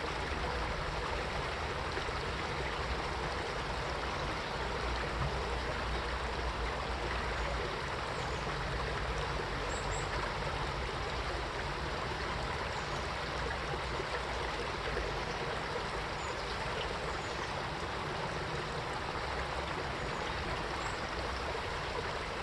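Mountain valley stream flowing over rocks: a steady rush of running water with some trickling.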